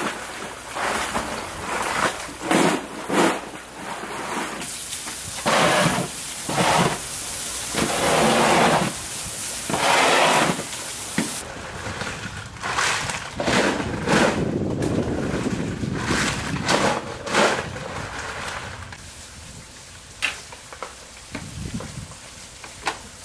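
Oysters in their shells being handled and sprayed with water: rough splashing and shell-clattering in repeated bursts, quieter for the last few seconds.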